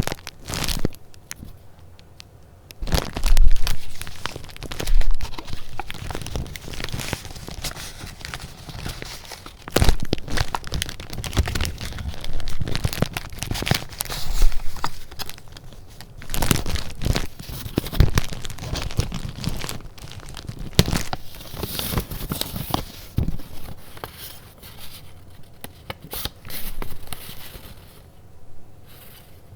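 Paper goods being handled: irregular rustling and crinkling of paper, with sharp crackles and soft knocks, the loudest a few seconds in and again around the middle.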